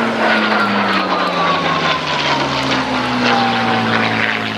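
Hispano Buchon's Rolls-Royce Merlin V12 engine and propeller at high power in a fast diving pass, the engine note falling steadily in pitch as it goes by.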